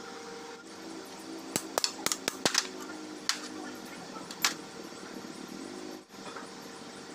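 Sharp metallic clicks and clinks of hand tools on a stripped tractor engine block as the connecting rod caps are worked loose, a quick cluster in the first half and a few single clinks after, over a steady low hum.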